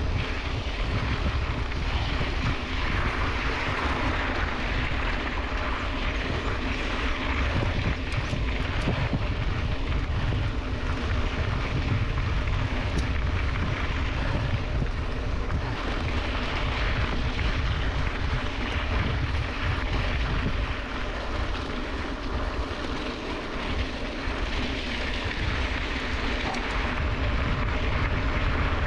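Steady wind rush on the microphone over the rolling rumble of a Scott Spark mountain bike's 29-inch tyres on a dirt road, as the bike is ridden along.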